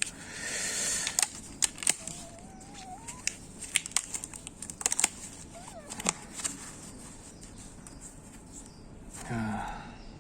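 Packaging being opened and handled: a burst of rustling, then a run of sharp clicks and small knocks.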